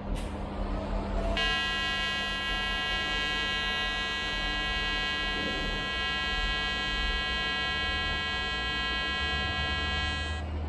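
Pulsed TIG welding arc at 100 amps with a 150 Hz pulse, giving a steady high buzz that starts about a second and a half in and cuts off shortly before the end.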